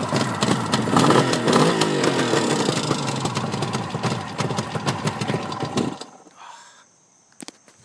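1973 Suzuki GT550 two-stroke triple running at idle, picking up briefly about a second in, then cutting off suddenly about six seconds in. A few faint clicks follow.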